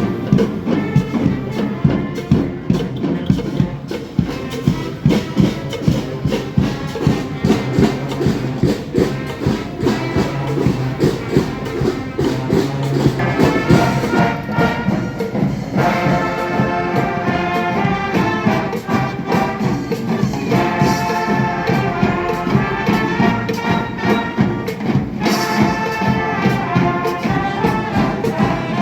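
Marching band playing, drums keeping a steady beat under low brass; about halfway through, higher brass come in on the melody in phrases with short breaks.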